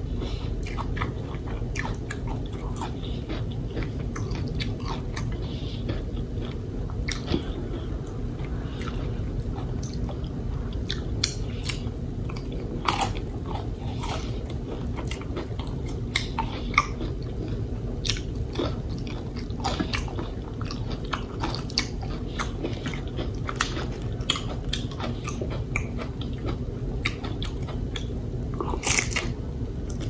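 A person chewing crunchy food close to the microphone: loaded nachos, with irregular sharp crunches throughout and a louder crunch near the end.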